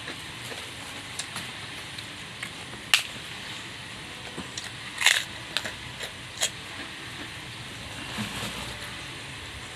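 Close-up eating sounds: chewing with sharp crunches of crisp food, the loudest crunch about 3 seconds in and a run of crunches about 5 seconds in.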